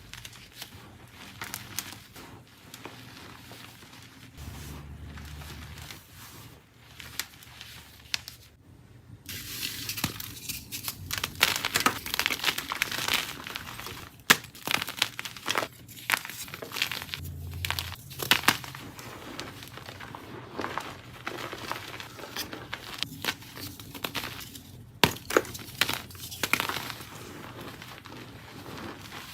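Blocks of dyed gym chalk crushed and crumbled by hand: dry crackling and crunching with sharp snaps. Softer at first, then after a brief pause about nine seconds in, louder and denser.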